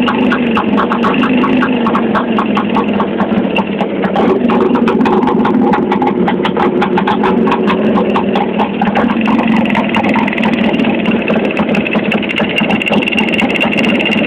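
Twin-cylinder motorcycle engine running at a low idle, a fast even train of firing ticks over its steady note, picking up slightly about four seconds in. The owner hears a rustling knock in it that quickens with revs, which he suspects comes from the piston group rather than the central crank bearing.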